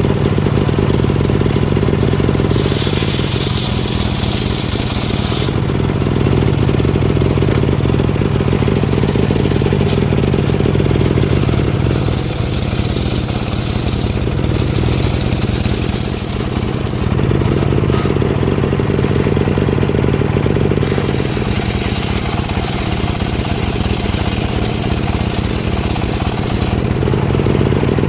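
Engine-powered wood saw running steadily under load, with stretches of higher hiss as it cuts through the log.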